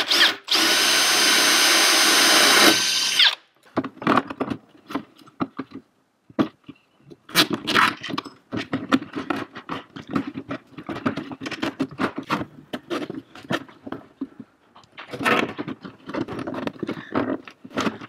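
Cordless drill with a 5 mm bit running steadily for about three seconds as it bores through a go-kart seat, starting about half a second in and stopping suddenly. After it, scattered small clicks and rustles of handling as plastic zip ties are threaded through the new holes.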